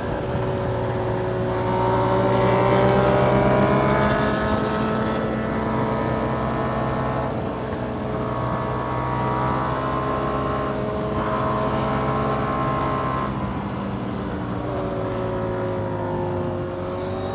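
2021 KTM 890 Duke R's parallel-twin engine through a catless Austin Racing GP1R exhaust, ridden hard: the pitch rises and falls repeatedly, with breaks in between where the rider shifts or rolls off for the bends.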